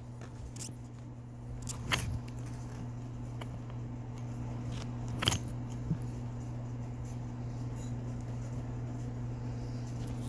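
A steady low electrical or mechanical hum, with a few sharp clicks over it, the loudest about two seconds in and about five seconds in.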